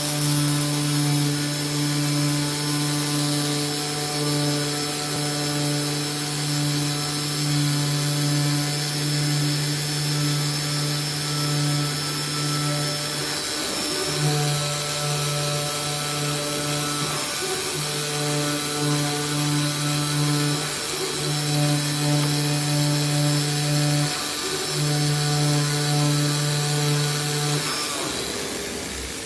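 CNC cutting machine's oscillating knife head running with a steady hum, cutting PP bubble guard board. The hum drops out briefly four times in the second half and stops near the end, over a steady hiss.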